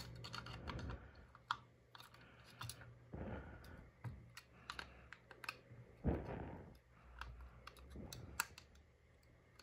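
Faint, scattered small clicks and taps of plastic and metal smartphone parts being handled, as the logic board is set back in and the flex-cable connectors are pressed into their sockets, with a few short, heavier knocks about three and six seconds in.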